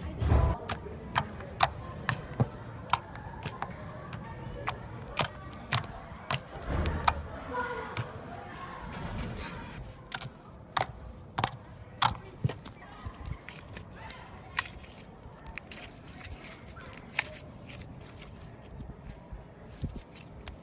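Slime being squeezed and pressed by hand, giving sharp irregular clicks and pops of trapped air about one or two a second, fewer in the second half. Heavier, low squelches come just after the start and again about seven seconds in.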